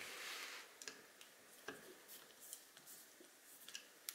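Faint, scattered small metal clicks and ticks of an Allen key working the screws of a scope ring, with a brief rustle at the start and a sharper click near the end.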